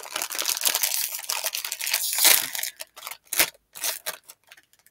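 A crinkly Cheetos chip bag being torn open: dense crackling and tearing for about two and a half seconds, then a few separate crinkles that die away.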